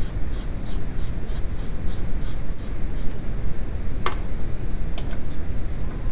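Artificial noise dubbed over the soundtrack to mask shop radio music: a steady rushing hiss, heaviest in the low end. Faint regular ticks, about three a second, run through the first three seconds, and a single sharp click comes about four seconds in.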